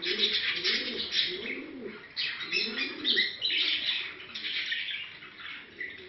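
Domestic pigeon cooing over and over in the rising-and-falling courtship coo, with dense high twittering chirps of small birds over it.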